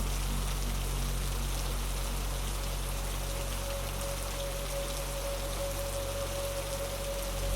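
Steady rain hiss mixed with a slow dark-ambient synth drone: low sustained bass tones under the rain, and a single held mid-pitched tone swelling in about two seconds in and fading near the end.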